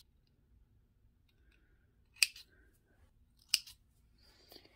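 Small thread snips cutting thread: two sharp snips about a second and a half apart, with a fainter click near the end.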